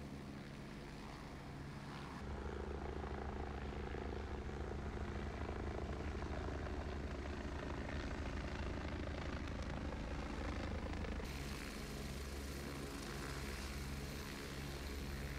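Military helicopter rotors and engines running with a steady low beating drone. The sound grows louder about two seconds in, as a helicopter flies low overhead, and changes abruptly again a little after eleven seconds.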